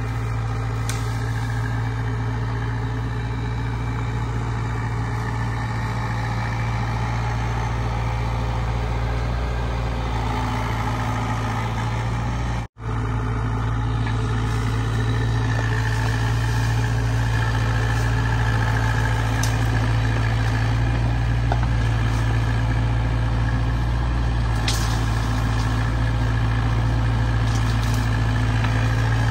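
Diesel engine of a Cat 304 mini excavator running steadily while it digs out a drainage ditch, with a few faint knocks. The sound cuts out for a moment near the middle.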